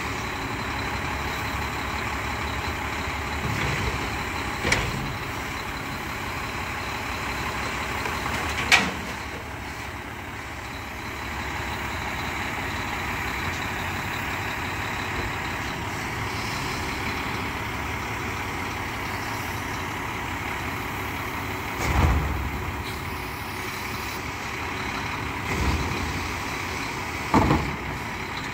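Mack MRU garbage truck with a Heil front-loader body running, its engine driving the hydraulics that lift trash carts on the front arms over the cab into the hopper and lower them again. Five sharp bangs are heard, at about 5 and 9 seconds in and three more near the end, as the carts and arms knock into place.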